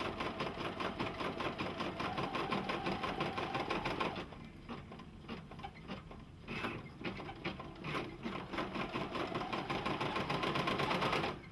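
Embroidery machine stitching with a rapid, even needle rhythm. It drops quieter and less regular about four seconds in, picks up steady stitching again around eight seconds, and stops just before the end.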